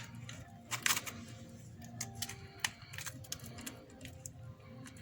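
Scattered light clicks and a short scrape about a second in, from a tool working the cracked glass screen of an iPhone X free of its frame, over soft background music.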